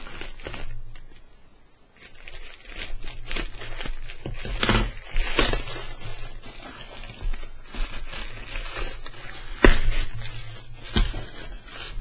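Plastic mailing bag crinkling, rustling and tearing as it is cut with scissors and pulled off a cardboard box, with irregular sharp crackles and one sharp knock near the end.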